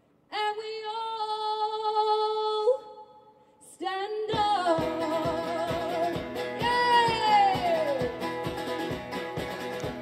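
Live band music: a woman's voice holds one long sung note, then about four seconds in the song comes back in full with guitar and a steady beat. About seven seconds in, a long glide falls in pitch.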